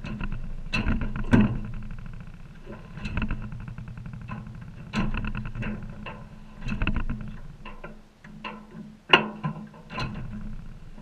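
Toro TimeMaster walk-behind mower being pushed up into a pickup truck bed, with a rattle as its wheels run over the ribbed bed liner. Several sharp clanks come at uneven intervals, the loudest about nine seconds in.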